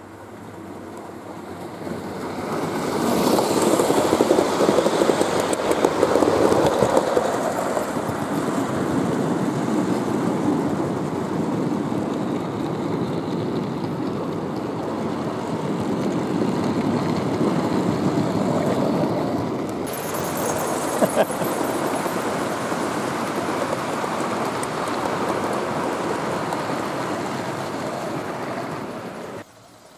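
Gauge 1 model train rolling past close by on its garden track, the wheels of its goods wagons running on the rails in a steady rolling noise. It builds up a couple of seconds in, is loudest a few seconds later as the train nears, and stays steady until it cuts off just before the end.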